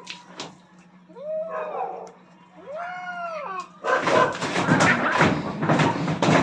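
Two cats fighting: drawn-out yowls that rise and fall in pitch, then from about four seconds in a loud, harsh outburst of screeching as they clash.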